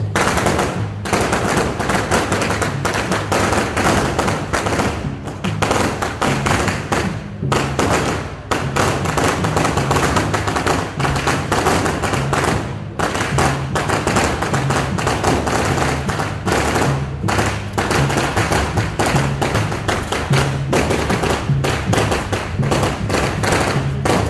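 Processional band music carried by a dense run of percussion beats and knocks over a moving bass line.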